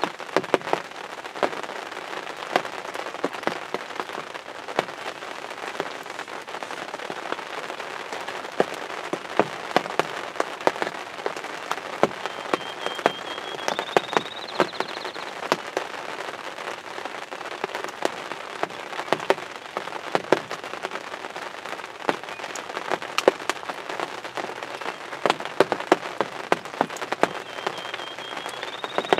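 Steady rain with heavy drops tapping irregularly close by, several sharp taps a second over a constant hiss. A short high rising whistle sounds twice, about halfway through and at the end.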